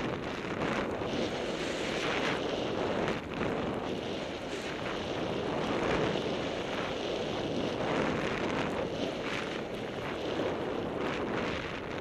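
Wind rushing over the microphone during a fast downhill ski run, mixed with the hiss of skis through snow; the noise surges and eases every second or two.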